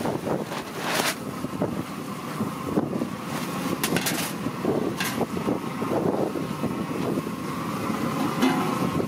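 Wind rumbling on the microphone over a steady outdoor noise, with a few sharp knocks and clatters of metal pot lids and vessels being handled.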